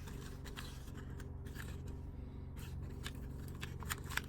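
Scattered light clicks and clinks of dog-grooming clipper blades and shears being handled, over a steady low hum, with a few sharper clicks near the end.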